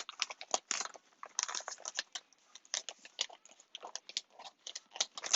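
Small scissors snipping and cutting through a parcel's tape and packaging: a run of short, irregular clicks and crisp scrapes.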